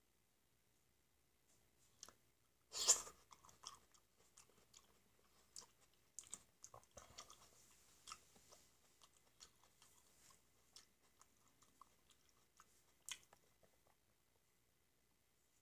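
Close-miked, faint mouth sounds of eating black grapes: a sharp bite about three seconds in, then soft wet chewing and small clicks, and one more sharp click near the end.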